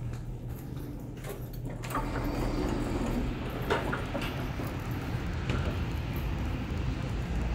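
Quiet indoor hum giving way, about two seconds in, to open-air ambience on an airport observation deck: an even, low rumble of distant engines, with a few scattered clicks and knocks.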